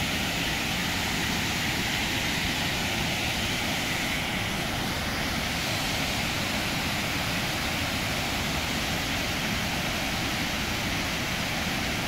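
Waterfall in heavy flow: a steady, unbroken rush of falling water.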